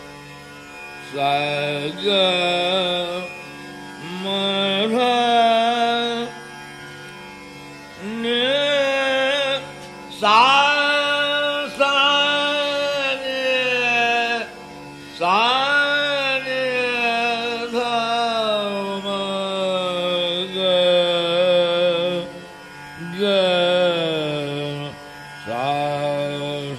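Male dhrupad vocalist singing slow phrases of raga Malkauns that glide and waver between notes, with short pauses between phrases, over a steady drone.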